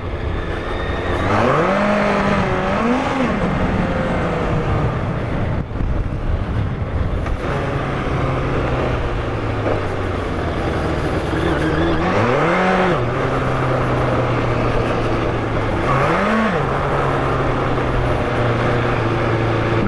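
Yamaha FZR1000's inline-four engine pulling in first gear over rough dirt. The revs climb near the start and then hold steady, with two short throttle blips later on.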